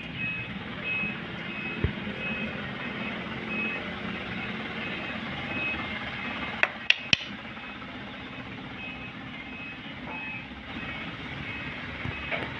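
An electronic warning beeper sounds a short high beep about twice a second over the steady hum of machinery. A sharp knock comes about two seconds in, and a few more clicks come around the middle.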